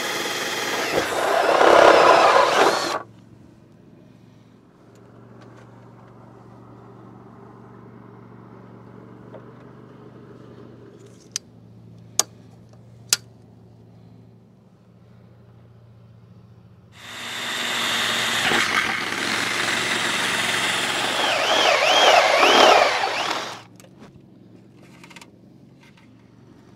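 Cordless drill with a step bit boring sensor holes through the car's rear bumper: two runs of high-speed whirring, the first stopping about three seconds in and the second lasting about six seconds from past the middle, each ending with a wavering squeal from the bit. Between them it is quieter, with three sharp clicks in quick succession.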